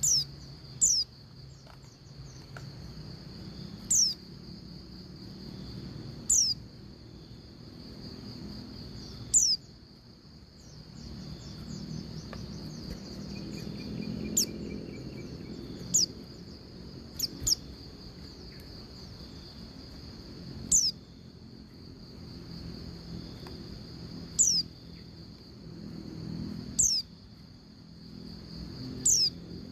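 Female white-eye (pleci) giving short, thin call notes that slide downward in pitch, about a dozen spaced irregularly, the sort of call used to lure a male into singing. A continuous high steady tone runs underneath.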